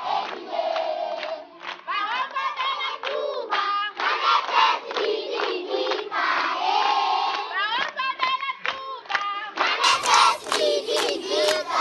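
A large group of schoolchildren singing together while clapping their hands.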